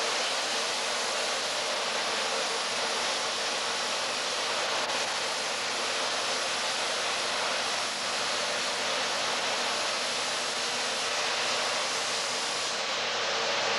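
Steady, even hiss with nothing else heard, starting abruptly at a cut: noise on the soundtrack of an old VHS camcorder tape rather than any sound in the workshop.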